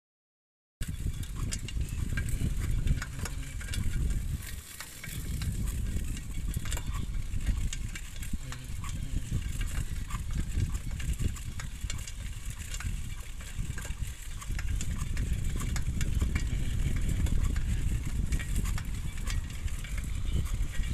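Wind buffeting the microphone while riding a bicycle over a dirt road, with a fine crackle of the tyres on grit and loose soil. It starts after a short silent gap.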